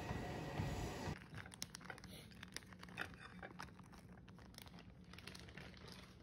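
Music that cuts off abruptly about a second in, followed by faint, scattered crinkling and clicking handling noises.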